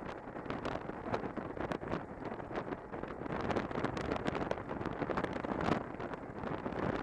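Wind buffeting the microphone of a camera on a moving motorcycle: a steady rushing noise that gusts and crackles unevenly.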